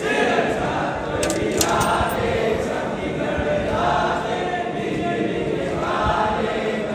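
A group of devotees singing an aarti hymn together, many voices in sustained sung phrases. A few brief high clicks sound between one and two seconds in.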